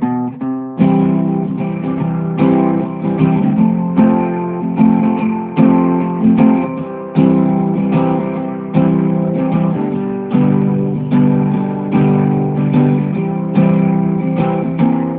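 Guitar music: strummed chords in a steady rhythm, each chord ringing out before the next.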